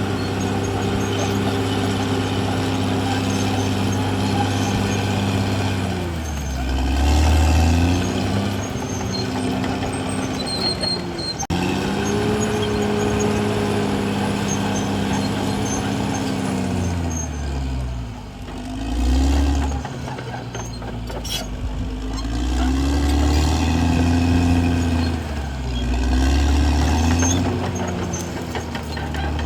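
CAT D6R XL bulldozer's diesel engine running hard. Its pitch holds steady, then sags and picks back up several times as the engine takes and sheds load.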